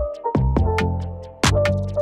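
Background music with an electronic beat: deep bass kicks that slide down in pitch, sharp hi-hat and snare hits, and held melody notes over them.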